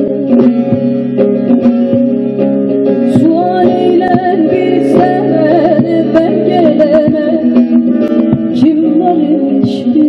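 Solo bağlama (Turkish saz) playing an instrumental passage of a Turkish folk song, amplified through a PA: a plucked melody over ringing lower strings, which stop about two-thirds of the way through.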